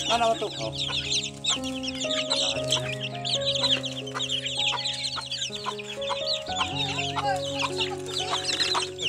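A crowded pen of chicks and young chickens peeping continuously: many short, high cheeps overlapping at once. Under them is background music of held chords that change about once a second.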